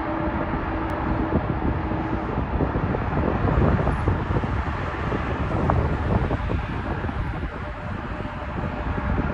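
Steady jet engine noise from a four-engine Airbus A380 on its takeoff run, with wind buffeting the microphone.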